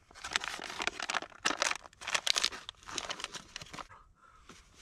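MRE food pouch being torn open and crinkled as the pound cake is pulled out: a run of crackly, rustling bursts that die down near the end.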